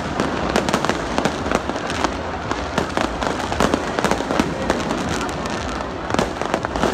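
Fireworks bursting in the sky: a dense, irregular string of sharp bangs and crackles.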